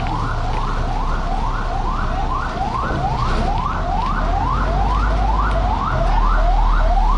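Electronic siren in a fast yelp: a tone that rises and then drops back sharply, about three times a second, over a low engine rumble.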